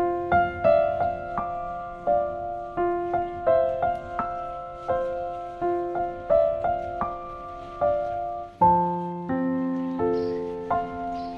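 Background piano music, a gentle melody of single struck notes over held bass notes, moving to a new chord about two thirds of the way through.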